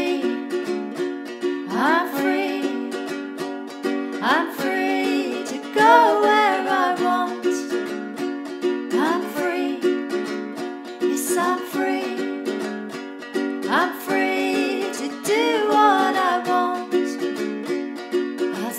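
Background music: a melody of short notes with pitch slides recurring every couple of seconds, over a steady low drone.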